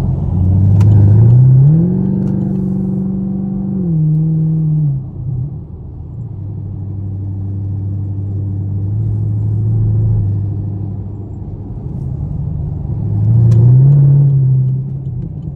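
Straight-piped Chevrolet Camaro SS's 6.2-litre V8 heard from inside the cabin, accelerating hard twice. The exhaust note climbs in pitch and holds loud for a couple of seconds, eases back to a steady cruising drone, then climbs again near the end before letting off.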